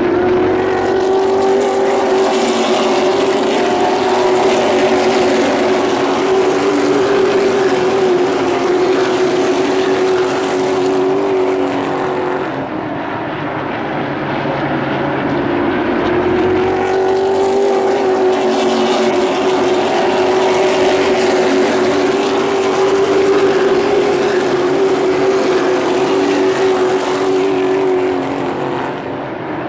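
A field of stock car engines droning together as the pack circles the track. The sound swells as the cars come by, falls off about twelve seconds in, then builds again a few seconds later and fades near the end.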